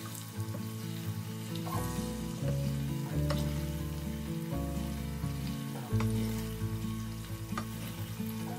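Shredded chicken frying in melting butter in a stainless steel pan, with a steady sizzle as a wooden spoon stirs it. Scattered clicks come from the spoon against the pan.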